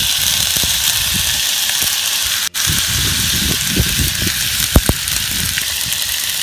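Olive oil sizzling in a cast iron skillet over hot charcoal as chopped tomato goes in with the onion: a steady crackling hiss. Two sharp knocks come close together about five seconds in.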